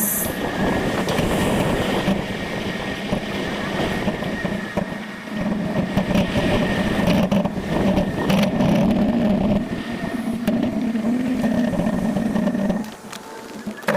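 Wind rush and road noise from a bicycle in motion, a steady low rumble with a faint hum, easing off briefly near the end.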